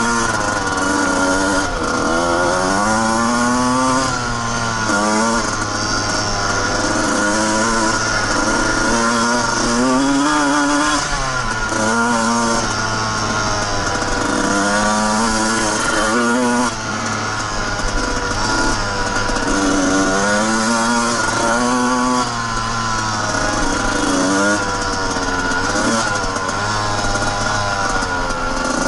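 Suzuki RM125 single-cylinder two-stroke dirt bike engine being ridden, revving up and dropping back many times as the throttle is worked.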